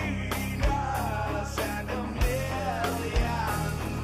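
Rock music with drums: deep kick-drum hits about once a second under a wavering melody line.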